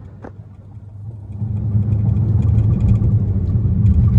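Dodge Charger's V8 engine heard from inside the cabin while driving. It is quiet at first, then gets louder about a second and a half in as the car picks up speed, and holds a steady low note.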